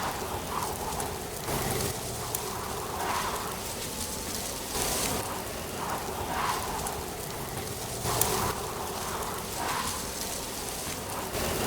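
Wind with rustling dry leaves: a steady hiss that swells in gusts about every three seconds, with a few sharp leaf ticks.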